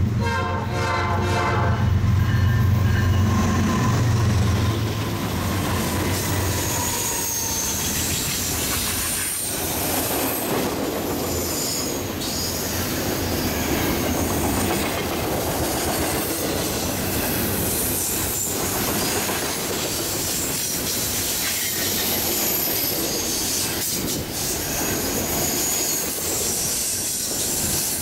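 Horn of a Norfolk Southern GE diesel freight locomotive blown briefly as a salute, ending about two seconds in, over the heavy drone of the lead locomotives' engines as they pass. Then double-stack intermodal container cars roll by with a steady wheel rumble and clatter, and a faint high wheel squeal comes and goes.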